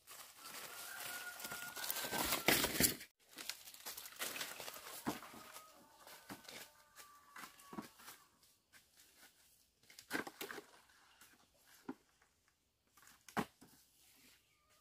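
Dry bamboo leaf litter crunching and rustling underfoot, with brushing through leafy undergrowth. A dense crackle runs for the first few seconds and stops abruptly, followed by scattered crackles and snaps, the sharpest about ten seconds and about thirteen seconds in.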